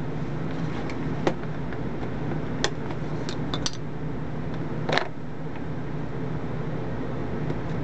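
A few sharp plastic clicks and knocks as a calculator is handled, its battery cover unsnapped and an AA battery pulled out of the compartment, the loudest about five seconds in. A steady hum runs underneath.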